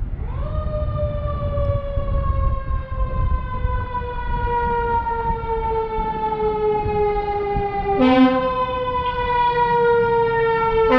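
Emergency vehicle siren wailing: it rises quickly at the start, then falls slowly in pitch for about eight seconds, and jumps back up twice, about eight seconds in and at the end, each time with a short low horn note.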